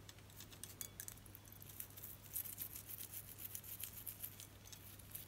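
Faint scrubbing with small scratchy ticks: a silver charm bracelet being brushed with a small cleaning brush in a bowl of warm soapy water.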